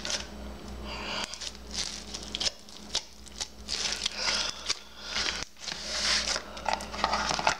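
Hands squishing and working slime mixed with foam beads, giving irregular soft crackling handling sounds over a steady low background hum.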